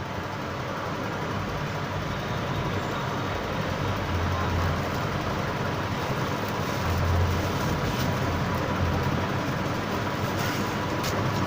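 Electric kettle heating water toward the boil: a steady rumbling hiss with a low hum that swells and fades.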